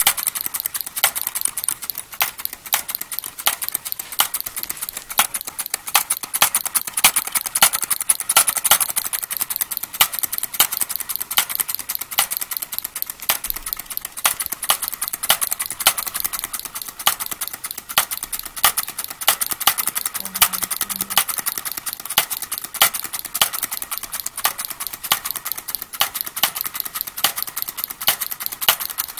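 Homemade Lenoir engine with a wooden cylinder running steadily: a fast, even train of sharp clicks, several a second, one for each spark-ignited firing of the cylinder.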